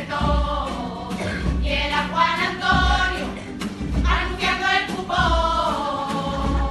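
A carnival group singing in chorus, several voices together, over low drum thumps about once a second.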